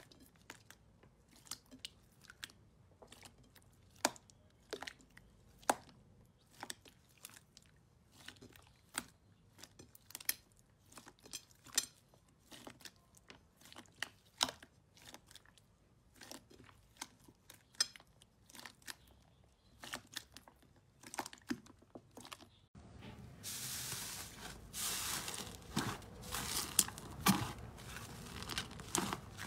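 Slime being squeezed and stretched by hand in a bowl, giving scattered sharp crackles and small pops. About 23 seconds in it changes to a louder, denser run of crackling and squelching pops as another slime is pressed down with the hands.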